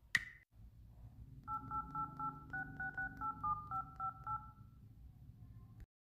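Samsung Z2 phone playing DTMF dialing tones as it dials a number: first a tap on the touchscreen with a short beep, then from about a second and a half in a quick run of about a dozen two-tone beeps, roughly four a second, the pitch changing from digit to digit, over a low hum.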